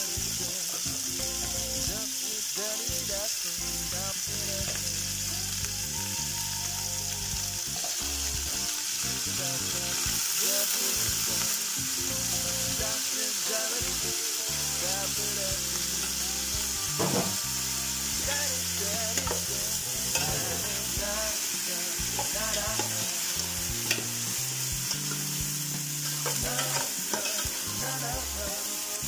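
Beef and beef bones sizzling in hot oil with sautéed tomato, onion and garlic in an aluminium pressure-cooker pot: a steady frying hiss. A metal spoon stirs the pot, scraping and clicking against it now and then.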